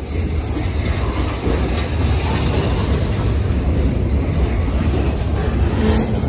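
Union Pacific train rolling past, its cars on the rails giving a steady, deep rumble.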